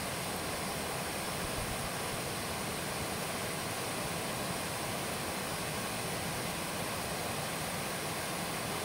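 Small slab waterfall: water sliding down a broad rock slab and falling into a pool, a steady, even rush.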